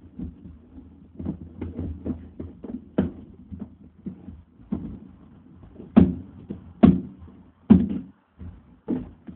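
Irregular clicks and knocks of a screwdriver working the mounting screws of a CPU fan inside a computer case. Three louder knocks come about six to eight seconds in.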